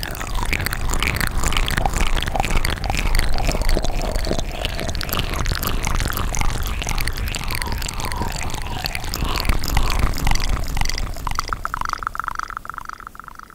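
Close-miked ASMR mouth sounds: a dense, continuous run of wet lip and tongue clicks and smacks. Near the end they give way to a short steady tone and fade.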